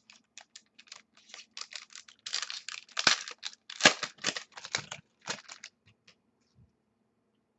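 Foil wrapper of a football card pack being handled and torn open: a quick run of crisp crinkles and rips, loudest about two to five seconds in, dying away near six seconds.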